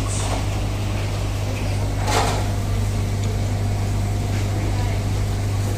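Steady low mechanical hum under an even wash of background noise, with a brief rush of noise about two seconds in.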